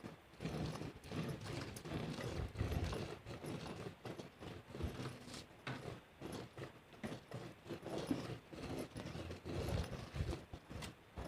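A cow being milked by hand: milk squirting into a pail in a steady run of uneven, rhythmic strokes.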